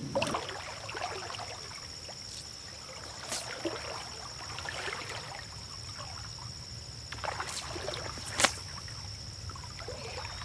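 A person in waders wading through a shallow creek, the water swishing and splashing around his legs with each stride. A few sharp knocks sound, the loudest about eight seconds in.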